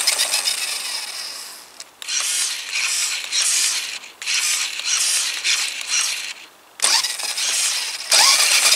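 Carrera RC Big Rock monster truck's electric drive motor and gearbox whirring as the wheels spin freely in the air, run in several bursts of about two seconds that start and stop abruptly with short pauses between them.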